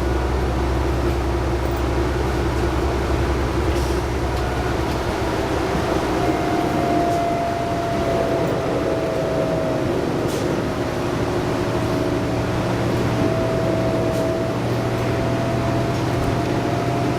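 2011 New Flyer D60LFR articulated bus, with its Cummins ISL9 diesel engine and Allison B500R transmission, heard from on board while driving: a steady engine and road noise. A whine comes in about six seconds in, dips slightly and rises again.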